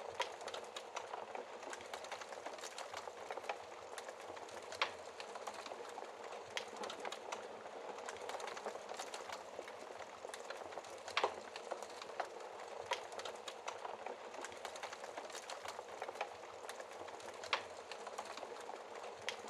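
Wood fire in a fireplace crackling: a steady hiss of burning with scattered sharp pops, the loudest about five, eleven and seventeen seconds in.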